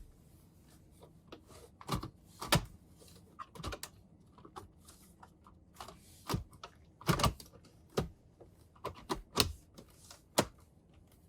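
Center-console trim bezel of a 2012 Subaru Legacy being pressed back into place: a string of irregular sharp clicks and snaps as its clips seat, a few louder than the rest.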